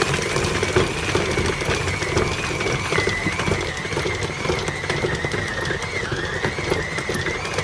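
Electric stand mixer running steadily, its flat beater churning stiff cookie dough with chips folded in. The motor gives a steady whine that wavers slightly in pitch as the beater labours through the dough.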